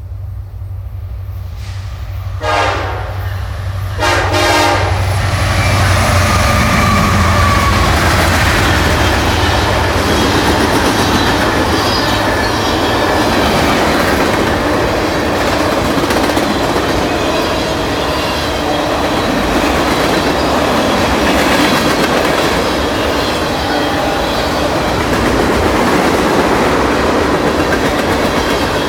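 Freight train passing: the diesel locomotive's engine hum comes first, with two short horn blasts a few seconds in. Then the freight cars roll by with a steady rumble and clickety-clack of wheels over the rail joints.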